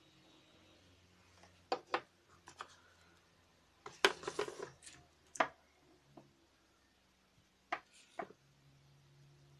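Hands handling a phone charger, cable and plastic box trays: scattered sharp clicks and taps, two close together about two seconds in, a longer rattling clatter around four seconds in, and two more taps near the end.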